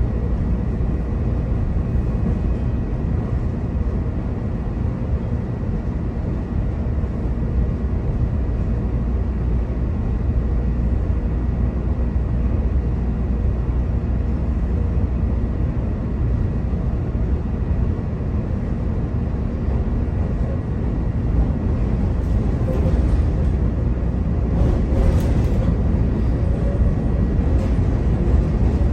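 CTA rapid-transit train running between stations, heard from inside the car: a steady low rumble of wheels on rail with a faint steady whine. Louder rattles and clatter come in over the last several seconds.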